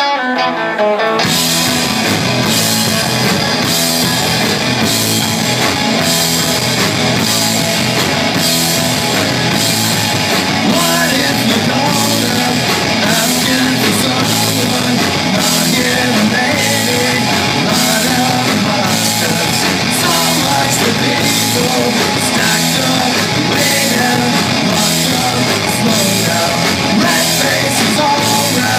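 Live rock band playing at full volume: electric guitar, bass guitar and a drum kit with a steady beat, and a man singing. The band comes in about a second in.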